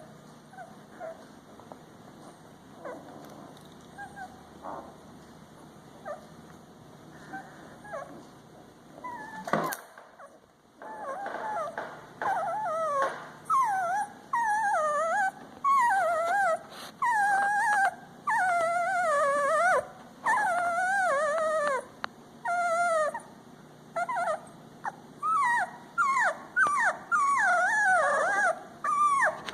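Twelve-day-old puppies whimpering and crying: faint little squeaks at first, then, from about a third of the way in, loud repeated wavering cries, roughly one a second.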